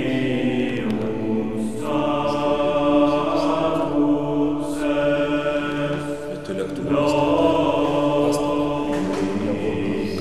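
Slow choral chant: several voices holding long notes that change pitch every two to three seconds.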